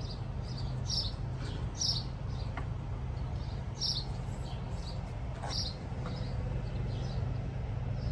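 Short high bird chirps every second or two over a steady low hum.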